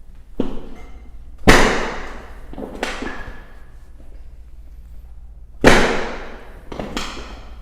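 Chiropractic drop table's drop section slamming down under the adjuster's thrusts: five sharp knocks, the loudest about a second and a half in and again near six seconds.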